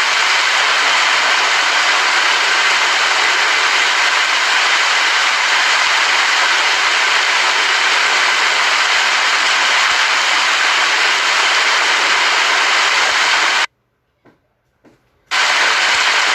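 Steady, dense hiss of heavy rain. It cuts out suddenly for about a second and a half near the end, apart from a couple of faint ticks, then comes back at full level.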